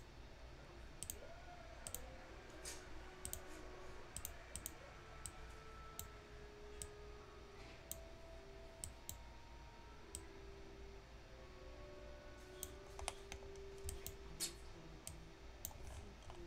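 Faint, scattered clicks from a computer mouse and keyboard, about one or two a second, bunching closer together near the end.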